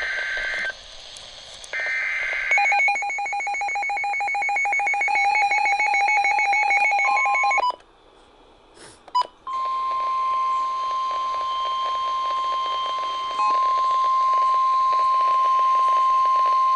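NOAA weather radio Emergency Alert System activation for a Special Marine Warning. It opens with two short warbling digital data bursts, then rapid pulsing alarm beeps for about five seconds, then after a short gap the steady single-pitch 1050 Hz weather-service warning tone, which gets louder partway through.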